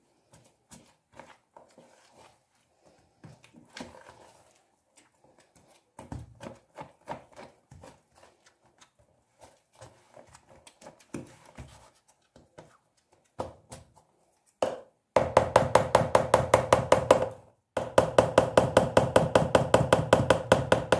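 Wire whisk working flour-and-water yeast dough in a plastic bowl. At first it makes scattered soft taps and scrapes, then for the last few seconds it gives fast, even knocking against the bowl in two quick runs with a short break between.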